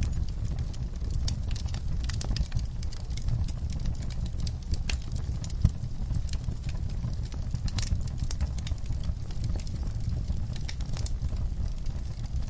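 Fire crackling, with many irregular sharp pops over a steady low rumble of the flames. One louder pop comes about five and a half seconds in.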